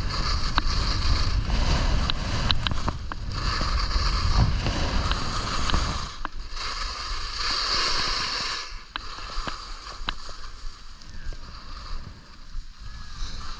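Skis hissing and scraping over groomed snow on a downhill run, with wind buffeting the camera microphone and scattered sharp clicks. The wind rumble drops away about six seconds in.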